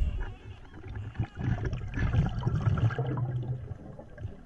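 Underwater gurgling of a scuba diver's exhaled bubbles from the regulator, irregular and uneven, easing off a little near the end.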